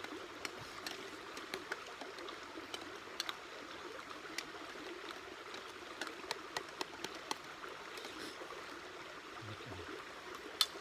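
Metal spoons clinking and scraping against stainless steel bowls as people eat, in scattered light ticks, with one sharper clink near the end, over a steady rushing background.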